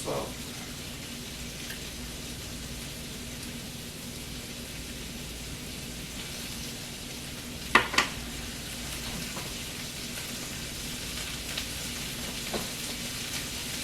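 Butter sizzling steadily in a pot on medium heat. Two sharp knocks come close together about eight seconds in, with a few fainter clicks later.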